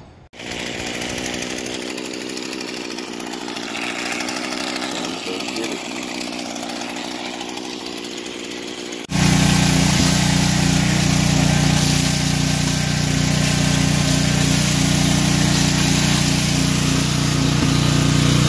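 Vacuum cleaner running as its nozzle sucks up broken window glass from a van floor. About nine seconds in, the sound jumps to a louder, deeper steady motor drone.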